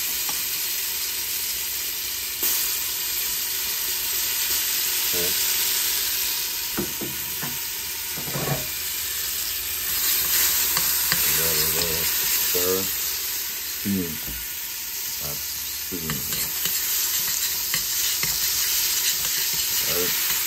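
Curry paste, curry powder and jeera mixed with water, frying in hot grapeseed oil in a stainless steel pot: a steady sizzle, with the pot being stirred and short squeaks from time to time.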